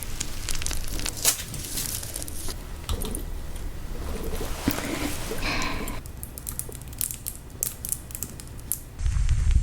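Close-miked ASMR trigger sounds: dense crinkling and crackling clicks. The texture changes abruptly about six seconds in, and a low rumble comes in near the end.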